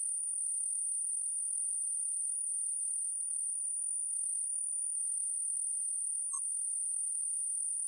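Steady high-pitched electronic whine: one constant tone with a fainter, higher tone above it, unchanging throughout.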